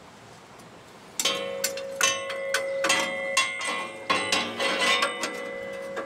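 A new steel band-saw blade clinking, scraping and ringing against the metal guides and wheel housing of a Wood-Mizer portable sawmill as it is slid into place. The clatter starts about a second in, with a steady metallic ring hanging under the clicks.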